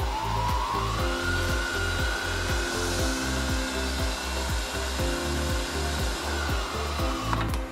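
WEISS VM32L milling machine's spindle motor whining, rising in pitch over the first second as the speed knob is turned up to about 2,200 rpm, then holding steady before falling away near the end. Background music with a steady beat plays underneath and is louder than the motor.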